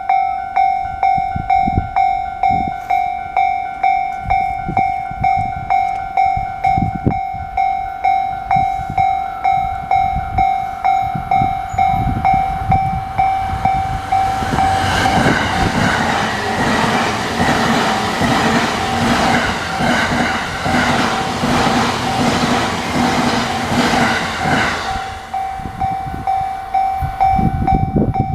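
A Japanese level crossing's warning bell rings steadily at about one and a half strikes a second. About halfway through, an E259 series Narita Express electric train passes over the crossing for about ten seconds, its wheels clattering over the rail joints and drowning out the bell. Once the train has gone, the bell carries on ringing alone.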